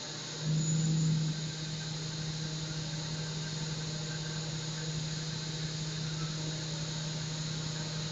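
CNC milling machine's spindle and end mill cutting a metal block: a steady machine hum with the hiss of the cut. It swells briefly about half a second in.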